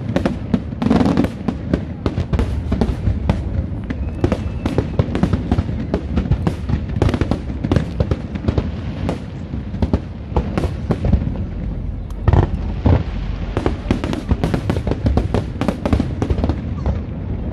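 Aerial fireworks bursting in rapid succession: a dense stream of bangs and crackles, with a cluster of sharper bangs about twelve seconds in.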